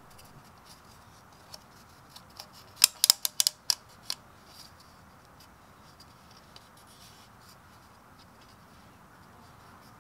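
Sharp little clicks and snaps from hands working a new rubber O-ring onto a Fiat 500's plastic oil filter housing cap: a few faint ticks, then a quick run of about half a dozen clicks about three seconds in and one more just after. Otherwise only faint handling noise.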